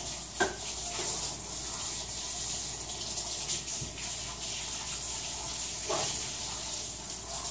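Kitchen sink tap running steadily, with two short, separate sounds over it, about half a second in and near the end.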